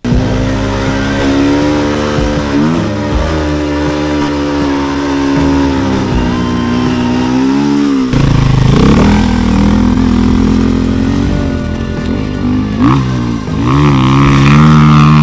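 Enduro motorcycle engine running and revving on sand, its pitch rising and falling again and again with the throttle and gear changes. Near the end a higher, steadier engine note takes over as a bike is held at high revs climbing a steep sand slope.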